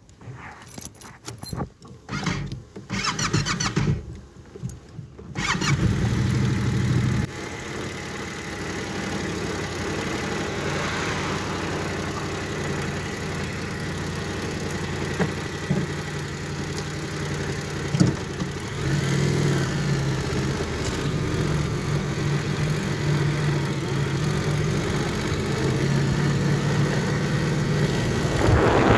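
Clicks and clatter for the first few seconds, then a vehicle engine starts about five seconds in. It runs louder for a moment, then settles into a steady run.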